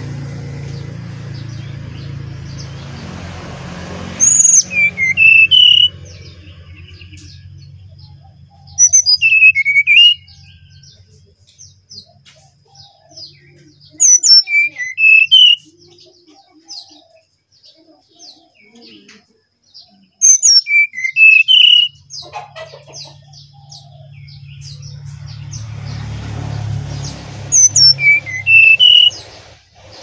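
Brown-chested jungle flycatcher (sikatan rimba dada coklat) singing the same short phrase five times, about every five to six seconds. Each phrase opens with a high falling note and runs into a few lower rising whistles. Under it is a low hum that fades out about halfway and returns near the end.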